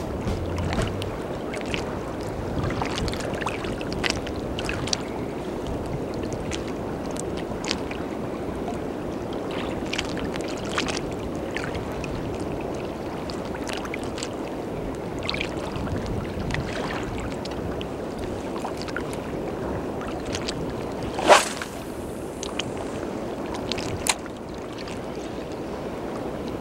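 A steady wash of shallow sea water sloshing around a wading angler, dotted with small clicks. A sharp splash-like knock stands out about 21 seconds in, and a smaller one comes about 24 seconds in.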